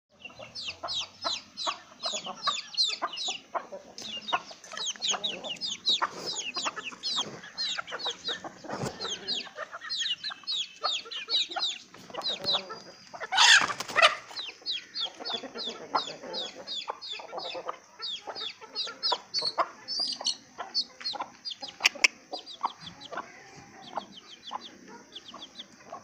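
Chicks peeping without pause, short high falling cheeps several a second, over the clucking of Aseel chickens; a loud harsh squawk stands out about halfway through.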